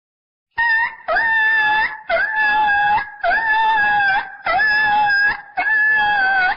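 Slowed-down recording of a puppy crying: six drawn-out whines in a row, about one a second, each opening with a quick swoop in pitch and then holding a steady, slightly falling tone.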